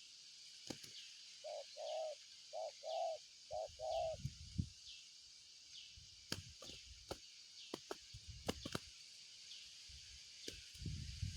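Spotted dove (tekukur) cooing: six short, low coo notes in three pairs during the first four seconds. Behind it runs a steady high hiss with a faint chirp repeating about once a second, and scattered clicks and low thumps follow in the second half.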